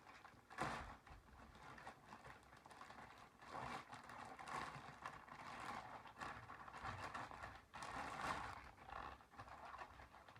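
Packaging being handled and worked open: faint, irregular rustling and scraping, with a few louder scrapes spread through.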